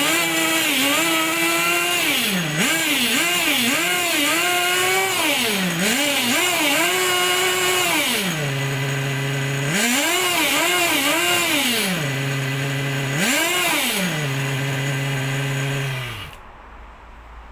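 Small two-stroke nitro glow engine, a Force AS21 .21 (3.5 cc) in a 1/8-scale Ansmann Virus buggy, revved over and over from idle: quick blips and longer pulls held at high revs before dropping back. Near the end it cuts out as the fuel line is pinched.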